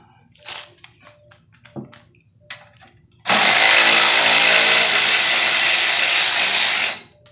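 Cordless electric ratchet running for nearly four seconds, backing out a 10 mm tailpipe bolt, after a few light metal clicks and knocks.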